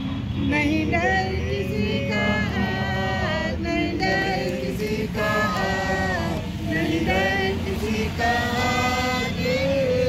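Voices singing a slow melody in short phrases with long held notes, over a steady low rumble.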